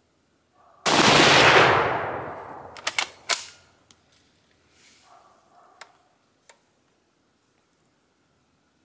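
A single rifle shot from a Type 99 Arisaka bolt-action rifle (7.7×58mm Arisaka) about a second in, its report fading out over more than a second. About two seconds later comes a quick run of sharp metallic clicks as the bolt is worked, with a few fainter clicks after.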